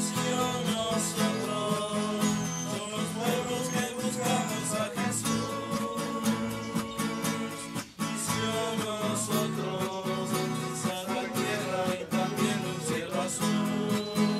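A group singing a song together in Spanish to a strummed acoustic guitar.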